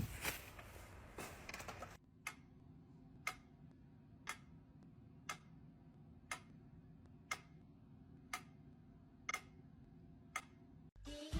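A short burst of noise, then a clock ticking steadily about once a second, nine ticks over a faint low hum.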